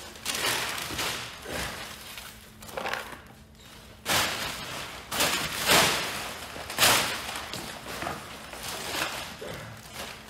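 Crumpled brown kraft packing paper rustling and crinkling as it is pulled out of a cardboard parts box, with a few louder crackling bursts about four, six and seven seconds in.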